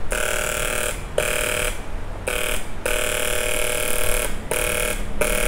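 Electric welding arc buzzing in about six short runs, stopping and restarting every second or so, with one longer run in the middle, as a crack in a Yamaha RXZ motorcycle crankcase is welded up.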